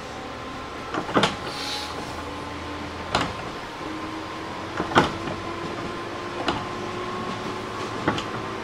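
JR East 205 series 600 subseries electric train running and gathering speed: its wheels clack over the rail joints at a quickening beat, and a faint whine slowly rises in pitch beneath the running noise.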